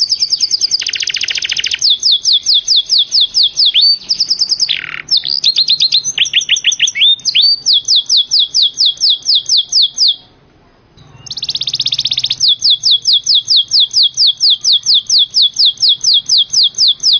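Domestic canary singing: a long, loud, high-pitched song of fast trills and runs of quick down-slurred whistled notes, about six a second. The song breaks off for about a second, roughly ten seconds in, then starts again with a trill and another run of the same notes.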